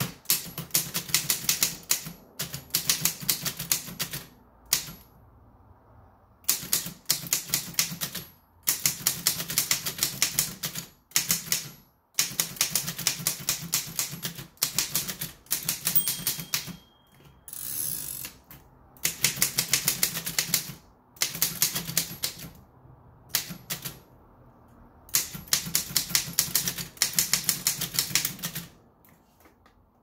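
Remington Standard No. 7 upstrike typewriter being typed on: its typebars strike up against the platen in quick runs of keystrokes a second or two long, broken by short pauses.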